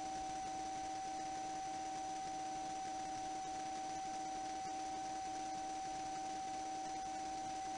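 A steady electrical hum or whine with several fixed tones and a faint pulse about twice a second, over a background hiss.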